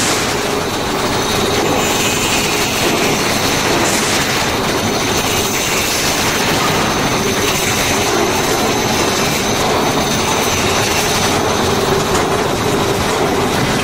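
Angle grinder cutting steel on a dump truck's tailgate, a loud, unbroken grinding with a high whine running through it.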